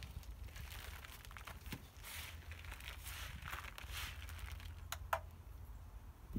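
Hands digging and sifting through loose, damp compost spread on a plastic sheet, rustling and crinkling in patches as they search for potatoes, with a couple of sharp clicks about five seconds in.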